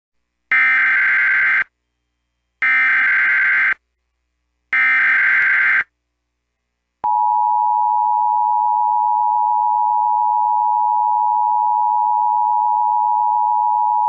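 Emergency Alert System header: three bursts of warbling digital data tones, each about a second long with about a second between them, then about seven seconds in the steady two-tone EAS attention signal (853 and 960 Hz) begins and holds. It marks the start of a broadcast emergency alert, here a tornado warning.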